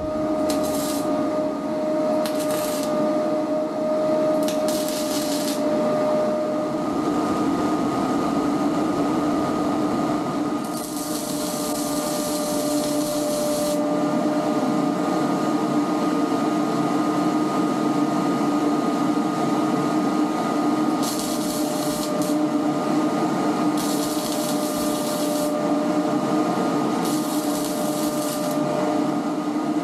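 Arc welding on a tubular metal cargo rack: several short bursts of arc hiss, each lasting about a second to three seconds, over a steady machine hum with a whine.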